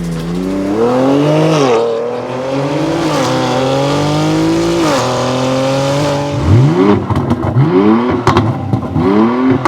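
BMW X3 M / X4 M twin-turbo inline-six running through a new AWE aftermarket exhaust. The revs climb twice, each time dropping sharply near the top, then hold steady briefly. About four quick, loud rev blips follow in the last three seconds.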